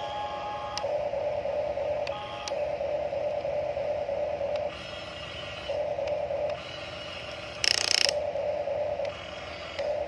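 Huina RC excavator's electric gear motors whining in short runs as the boom and bucket move, starting and stopping several times. A brief hiss about eight seconds in as sand pours from the bucket.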